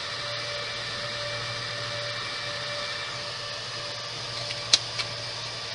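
Dell PowerEdge R720 server's cooling fans running with a steady rushing hiss while the server boots. A sharp click comes about three-quarters of the way through, with a softer one just after.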